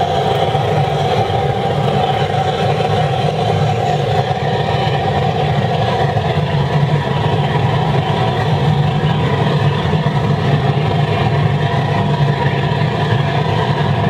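Waste-oil burner running flat out into a drum furnace: a steady rushing noise of flame and air over a low hum, unchanging throughout.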